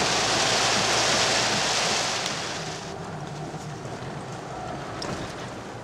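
Heavy rain pelting the roof and windscreen of a Holden Rodeo 4WD, heard from inside the cab while it drives in the downpour. About two to three seconds in, this gives way to a much quieter steady running noise of the vehicle.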